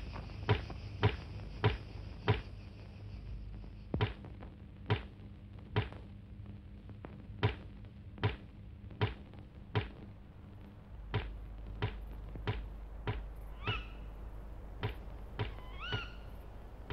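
Sharp knocks repeating at a slow, steady pace, a little under one a second, with a bird chirping a few times near the end.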